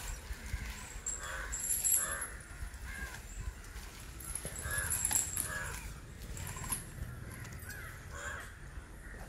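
Birds giving short calls repeated every second or so over a low steady rumble.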